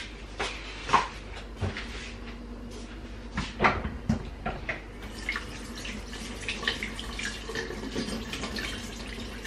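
Water running from a kitchen tap into a sink as a steady faint hiss, with a few light knocks in the first half.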